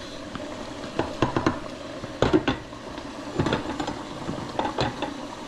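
Metal cookware being handled on a stovetop: a pot lid and saucepans clink and knock several times, in separate short knocks.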